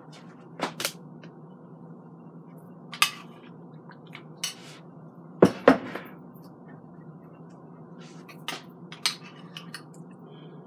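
A spoon and a ceramic bowl clinking and knocking as chili is served and stirred: scattered sharp clinks, the loudest pair about five and a half seconds in, over a low steady hum.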